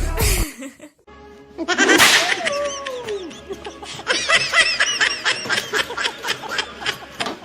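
Music cuts off; then a falling, voice-like cry followed by high-pitched laughter in quick repeated bursts.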